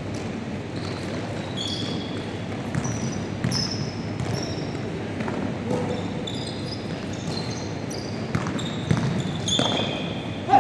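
Basketball game on a hardwood gym floor: the ball bouncing and sneakers squeaking in many short high chirps, all echoing in a large hall, with a louder thud near the end.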